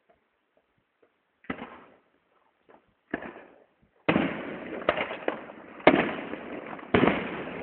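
Firework display finale: near quiet at first, then two single bangs a couple of seconds apart, and from about halfway a rapid barrage of loud booming bursts over a steady crackle, like a load of cannons going off.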